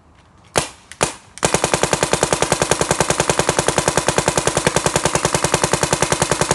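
Dye DM14 electronic paintball marker firing live: two single shots about half a second apart, then from about a second and a half in, rapid fire at an even pace of about ten shots a second.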